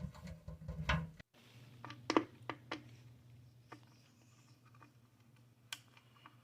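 Scattered sharp clicks and knocks of tools and metal parts being handled while a garbage disposal is mounted, over a low steady hum; a low rumbling noise in the first second stops abruptly.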